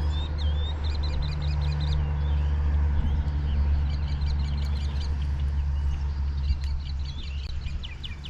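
Small birds chirping and trilling repeatedly, over a steady low rumble.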